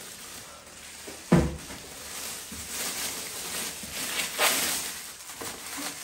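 Plastic wrapping rustling and crinkling as it is pulled off an espresso machine, with a heavy thump just over a second in and a sharper knock a little after four seconds.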